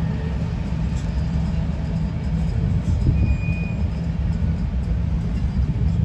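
Freight train rolling past as a steady low rumble, with a brief high-pitched squeal about three seconds in.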